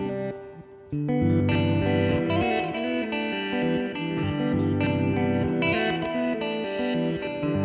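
Electric guitar played through an Old Blood Noise Endeavors BL-44 reverse pedal: layered sustained notes with some bending pitches, briefly dropping away and then coming back in strongly about a second in.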